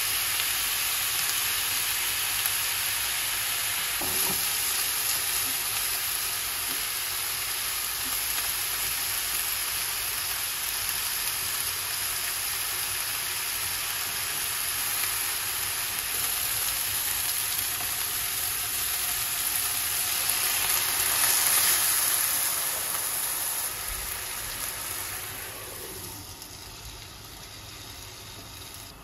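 Chicken thigh pieces and skewered leeks sizzling steadily in oil in a frying pan, with a few light taps as they are turned with chopsticks. The sizzle swells a little about three-quarters of the way through, then dies down near the end as the pan is covered with its glass lid.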